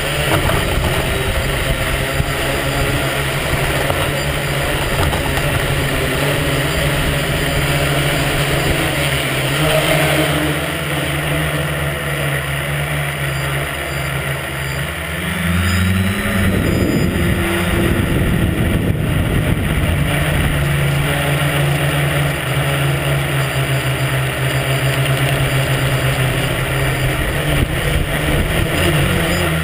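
Tricopter's electric motors and propellers buzzing steadily right under the camera, with a rough rumble from prop wash on the microphone. About halfway through the pitch rises and then holds higher as the throttle is opened and the tricopter climbs.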